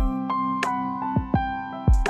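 Background music: soft held notes over a low thudding beat.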